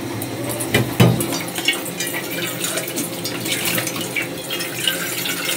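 Tap water running from a faucet into a bowl held under it over a stainless steel sink, after two short knocks about a second in.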